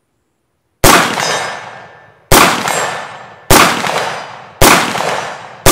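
Five rifle shots from an IWI X95 bullpup rifle firing 5.56 mm ammunition, evenly paced about one every second and a bit, each shot ringing out in a long fading tail. The last shot comes right at the end.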